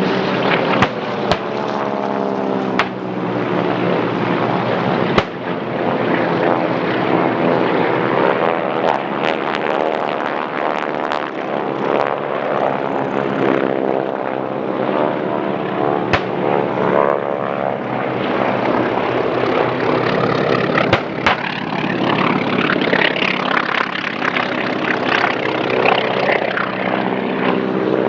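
Several propeller warplanes fly low overhead, their radial engines running loud and steady, the pitch sliding up and down as each one passes. A handful of brief sharp cracks sound through it.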